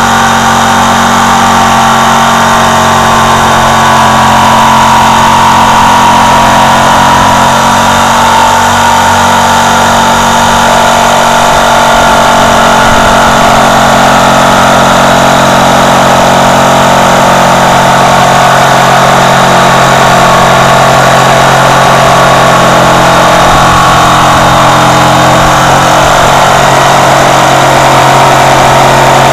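Corded electric jigsaw running without a break, its blade cutting through wood.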